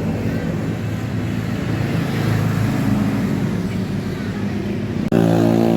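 Bus diesel engine running steadily with a low hum. About five seconds in the sound cuts off for an instant and comes back louder, with a bus engine running close by.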